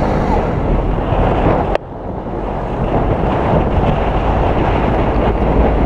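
Wind rushing over a car-mounted camera's microphone while driving, over the low rumble of the moving car. The noise drops abruptly just under two seconds in, then builds back up.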